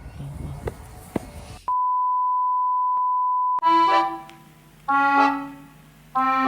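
Faint background noise with a few sharp clicks, then a steady, high beep tone held for about two seconds that cuts off abruptly into accordion music playing chords in short phrases.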